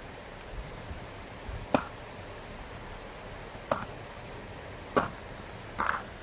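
Four short, sharp clicks or knocks of hard objects being handled, spaced one to two seconds apart, over a steady low hiss.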